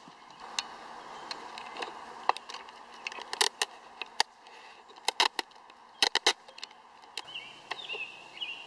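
A string of sharp, separate clicks and crackles over a faint outdoor hiss, some in quick pairs and triplets. High bird chirps come in near the end.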